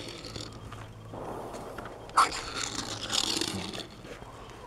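Die-cast toy pickup truck's small wheels rolling and skidding across a flat board, a scraping hiss, with one sharp knock about two seconds in.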